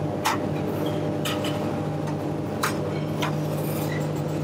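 Steady hum of kitchen machinery with several fixed tones, broken by a few short hissy spurts as a plastic squeeze bottle squirts lemon sauce onto asparagus on a metal plate.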